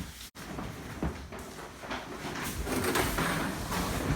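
Knocks, scraping and rustling of things being moved and handled, growing denser and louder in the last second and a half.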